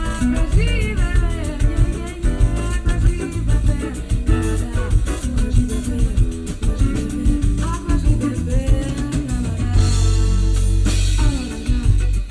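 A song with singing, guitar and drum kit played through a custom car audio system, heard inside the van's cabin.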